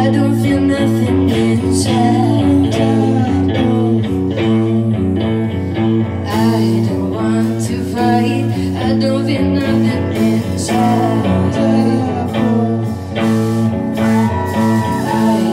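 Live rock band playing: a woman singing over electric guitar, bass guitar and drums.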